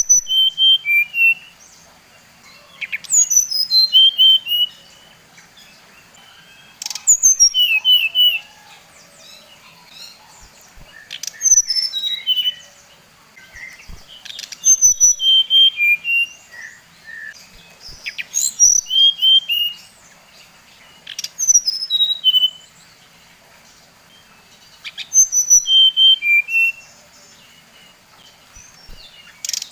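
A sikatan rimba dada coklat (SRDC), a jungle flycatcher, singing: short phrases of quick, clear whistled notes that fall in pitch, repeated about every three to four seconds with short pauses in between.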